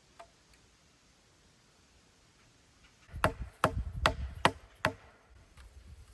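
A run of five sharp knocks, about two and a half a second, starting about three seconds in after a quiet stretch.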